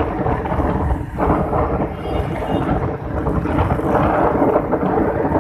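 Wind rumbling over the microphone of a moving motorcycle, with the engine running underneath as a faint steady hum.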